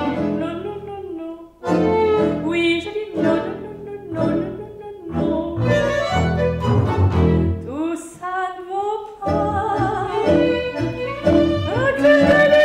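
Instrumental tango played by a small ensemble of violin, bandoneon, bowed double bass and guitar, in gliding, phrased passages.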